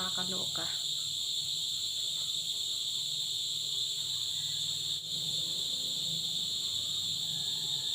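Steady, shrill insect chorus, which she takes for cicadas: a continuous high drone that holds without a break, with a faint low hum beneath.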